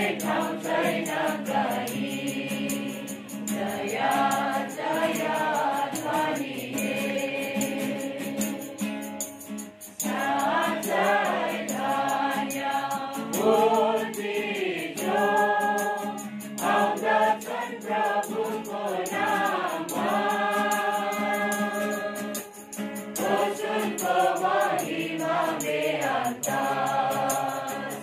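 A congregation of men's and women's voices singing a hymn together in phrases, accompanied by an acoustic guitar.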